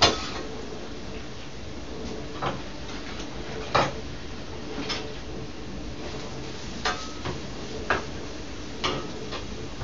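A cooking utensil knocking and scraping against a frying pan as chopped onions are stirred, giving several sharp knocks at irregular intervals over a steady low hum.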